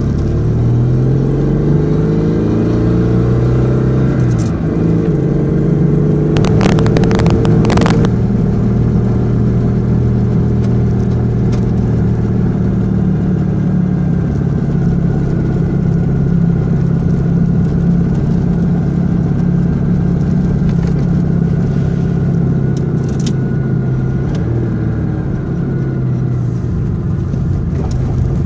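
Citroën 2CV air-cooled flat-twin engine in a Dyane, heard from inside the cabin on the move. It is loud because the exhaust's rear silencer is broken. Its pitch climbs over the first few seconds, drops at a gear change, and then holds steady at cruising speed, with a brief burst of clatter about seven seconds in.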